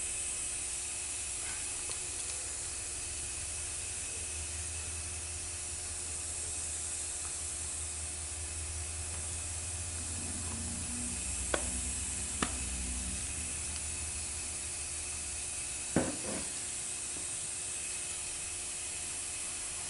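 Steady background hiss with a low hum swelling through the middle. Three short sharp clicks about halfway through, a second apart, and once more later, as the metal parts of a 6T70 transmission's aluminium valve body and steel separator plate are handled and set together.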